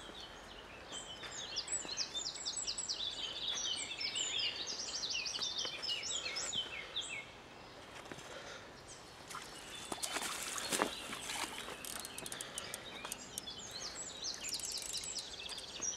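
Small birds chirping in quick repeated high phrases, with a stretch of water splashing and rustling about ten seconds in as a hooked chub is scooped into a landing net.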